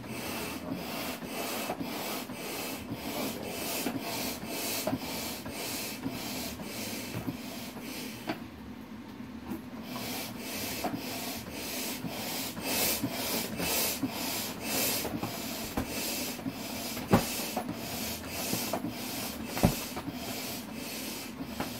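Hand-operated floor air pump being worked steadily, a rush of air with each stroke at about two strokes a second, inflating a vinyl inflatable dragon toy. The pumping stops briefly a little past eight seconds, and two sharp knocks stand out in the last few seconds.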